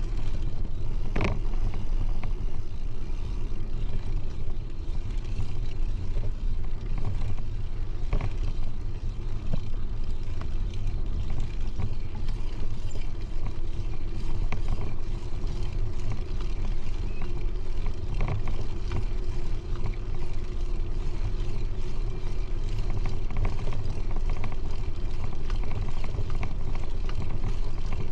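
Steady low rumble of wind and tyre noise on a camera riding on a moving bicycle, with a few light knocks now and then.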